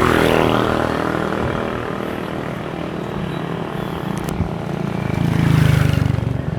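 Motor vehicle engines running on the road, with a vehicle going by near the start and another swelling loudest and passing about five to six seconds in.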